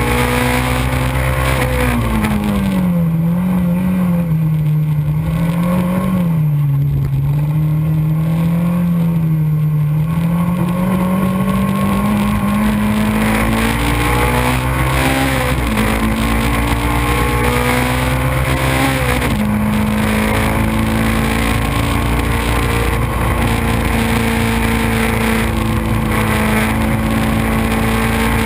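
Racing kit car's engine running hard on track, heard from on board. Its note dips about two seconds in and wavers, then climbs steadily for about ten seconds, and drops suddenly about two-thirds of the way through with a gear change before holding steady.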